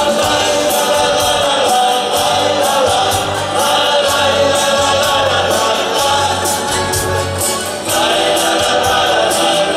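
Male vocal group singing in chorus over a plucked-string band of guitars with electric bass. The voices break off briefly about eight seconds in and come back in together.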